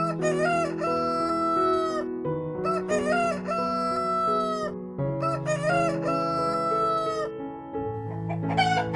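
Rooster crowing three times in a row, each crow about two seconds long, a wavering start followed by a long held note, with another call beginning near the end.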